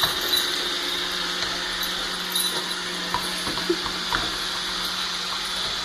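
Upright household vacuum cleaner running steadily: a constant motor hum under a rushing of air, with a few faint knocks.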